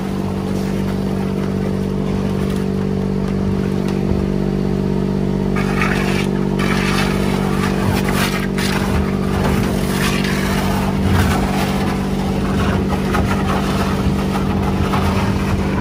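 Motorboat engine running at a steady speed, a constant drone with rushing noise over it.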